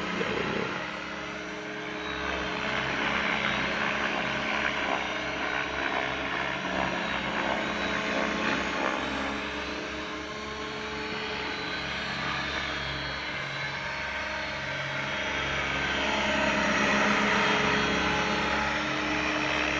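Three Align T-Rex radio-controlled helicopters (500, 600 and 700 sizes) flying together, their rotors making a steady whine of several overlapping tones. The sound grows louder about three quarters of the way through.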